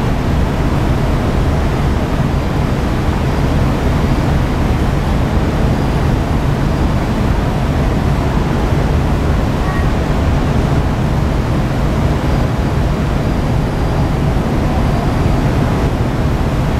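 Steady low rumble and noise of a car ferry's engines and machinery, heard out on deck as the ship comes alongside to berth.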